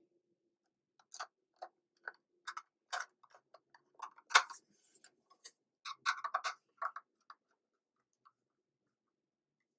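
Irregular light clicks and taps of a screwdriver working on the base of an airsoft AK gas magazine, bunched between about one and seven seconds in, with one sharper click near the middle.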